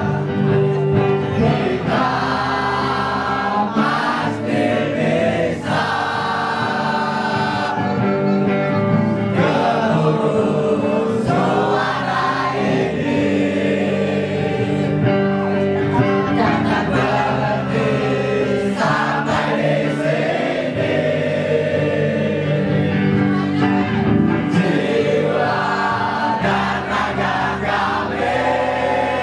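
Many voices singing a slow song together over musical accompaniment, in long held notes.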